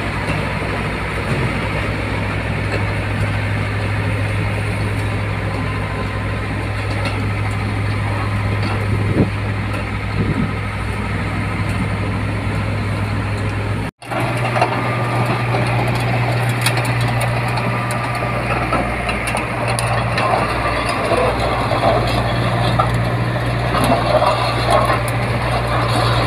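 Caterpillar D3C bulldozer's Cat 3046 six-cylinder diesel running steadily. After a brief cut about halfway, the engine note sits a little higher and more metallic clatter from the steel crawler tracks joins it as the dozer moves.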